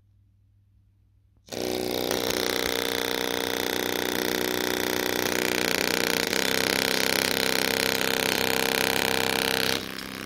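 Small paper-cone speaker wired straight to an amplifier with alligator clips, driven far past its limit so that it is being blown: a loud, harsh, distorted blare that starts abruptly about a second and a half in, holds steady, and drops off sharply near the end.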